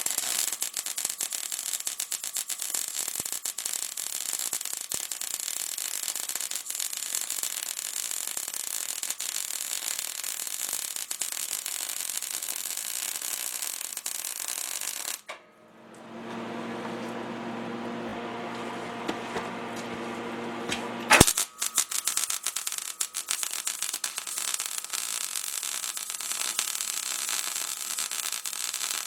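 MIG welder arc crackling and frying steadily as the new crossmember is welded to a steel frame, with 0.023-inch wire and argon/CO2 shielding gas. It stops briefly about halfway through; a steadier humming sound and one sharp click come before the crackling resumes.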